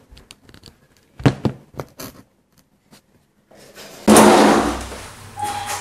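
A few knocks and thuds, then a dining chair pulled out and scraped across the floor. The scrape is loudest as it starts and tails off over a second or so.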